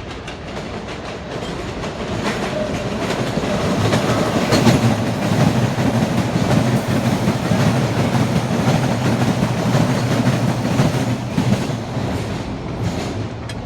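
MBTA Blue Line subway train passing on its way into the tunnel, its wheels running on the rails. The sound swells over the first few seconds, holds loud through the middle and fades near the end.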